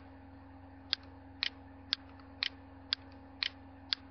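Computer mouse button clicking about twice a second, some clicks coming as quick doubles, over a low steady electrical hum.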